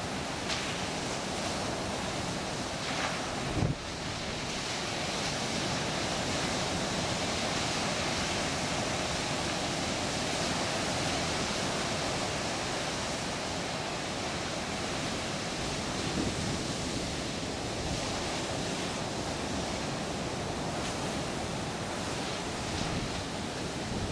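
Ocean surf breaking steadily on the beach, with wind buffeting the microphone; one brief thump about three and a half seconds in.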